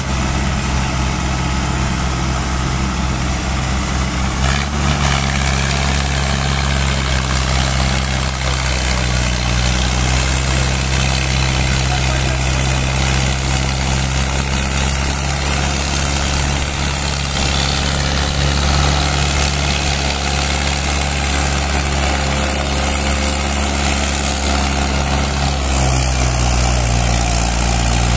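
Tractor diesel engine running steadily under heavy load while hauling two loaded sugarcane trailers. The note is deep and even, with a slight shift about four seconds in and again near the end.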